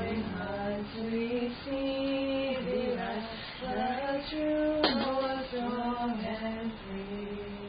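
A woman singing a slow melody, holding notes and gliding between them. A single sharp click sounds about five seconds in.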